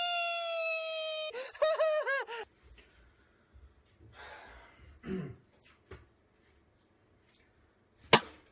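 A long wailing cry held on one note and sinking slowly in pitch, breaking into a few short rising-and-falling cries about a second and a half in. After that only faint scattered sounds, with one sharp click near the end.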